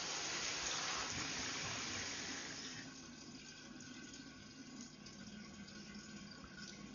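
Shower water running with a steady hiss, dropping to a fainter hiss about three seconds in.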